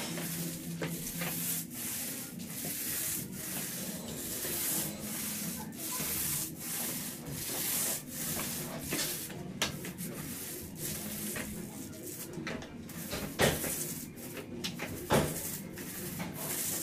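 Paint roller on a pole rolled back and forth through wet epoxy top coat on a flake floor, a rhythmic rubbing swish about once a second. Two louder knocks stand out near the end.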